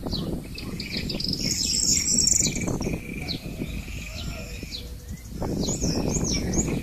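A rake scraping and splashing through wet mud and shallow water in strokes, in two spells with a lull between them. Birds chirp throughout, with a louder trill a couple of seconds in.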